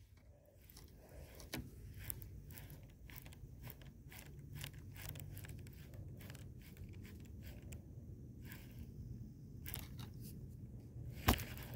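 Faint crunching and clicking handling noise close to the microphone, with one sharper click near the end.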